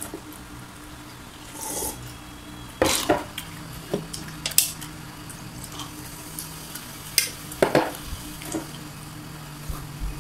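Close-mic chewing of crispy fried chicken skin: a series of sharp crunches, a second or more apart, the loudest about three seconds in and again past seven seconds.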